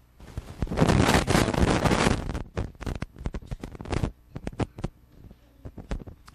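Microphone crackling and popping: a dense burst of crackle about a second in, then scattered sharp pops, the noise of a faulty microphone or its connection.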